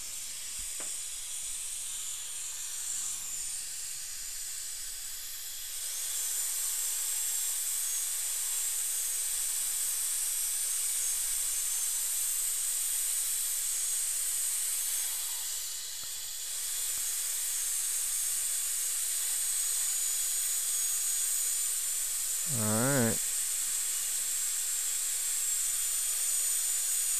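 High-speed dental handpiece with water spray: a steady high whine and hiss, louder from about six seconds in and briefly stopping around sixteen seconds. The fresh bur is cutting through the contact area of an old porcelain-fused-to-metal crown to separate it from the neighbouring tooth.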